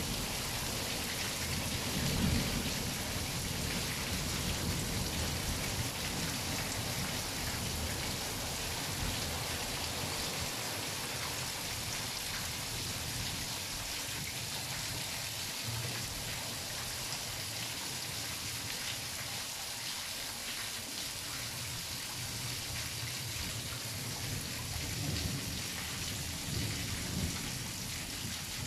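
Steady rain pouring and splashing, with rolls of thunder rumbling low underneath: one about two seconds in, another a few seconds later, and more near the end.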